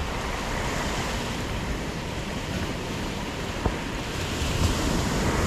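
Sea waves washing on the shore with wind buffeting the microphone, steady throughout; a single short click about three and a half seconds in.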